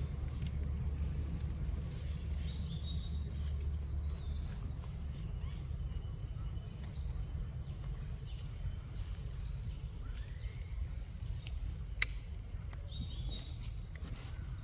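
Outdoor ambience: a steady low rumble with short, faint high chirps scattered through it, and a single sharp click about twelve seconds in.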